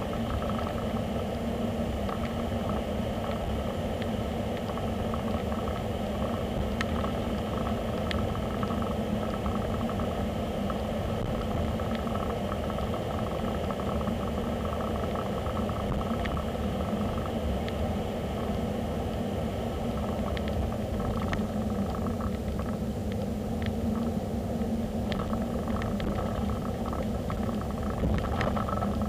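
Steady road and engine noise of a moving car, with a constant hum and faint scattered ticks.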